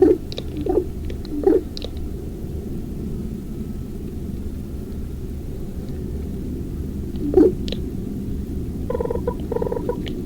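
Ravens calling: several short, hoarse croaks in the first second and a half and another about seven seconds in, then a quick run of clipped, pitched notes near the end. A steady low rumble runs underneath.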